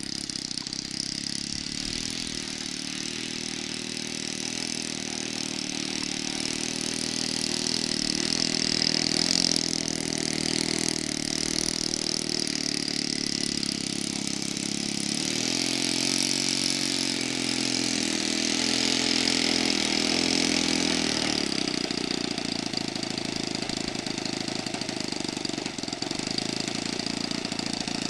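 Saito FA-72 four-stroke glow engine of an RC Corsair running. Its pitch rises and falls with throttle changes past the middle, then it settles to a steady idle about three-quarters of the way through. The freshly rebuilt engine is still running a little rich while it is broken in.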